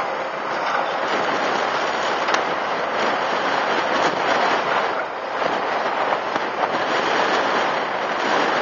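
CAT M315C wheeled excavator working, a steady noise from its engine and hydraulics as it slews and moves its bucket.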